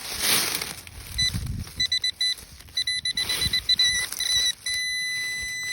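Metal detector tone sounding over a buried metal target: rapid short beeps, then a steady held tone starting about a second before the end, with scrapes of digging in the soil.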